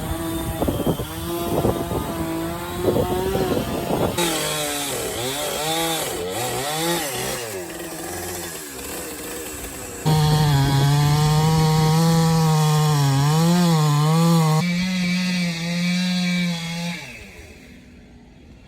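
Chainsaw running and cutting up a wind-felled pine, its engine pitch rising and sagging as it works through the wood. It jumps abruptly a couple of times and is loudest and steadiest in the second half, then dies away near the end.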